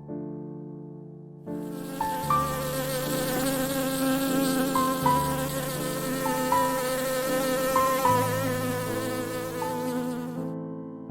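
A flying insect buzzing steadily for about nine seconds, starting about a second and a half in and cutting off shortly before the end, over soft piano music.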